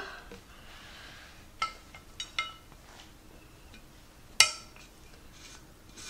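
Dishes clinking as a ceramic serving platter and a metal loaf pan are handled on a countertop: three light clinks with a short ring, then a sharper, louder clink about four seconds in.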